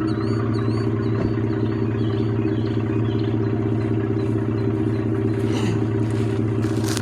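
Ford F-150's 2.7 L twin-turbo EcoBoost V6 idling steadily through a resonator-deleted exhaust with a 5-inch tip, giving a little more rumble and tone.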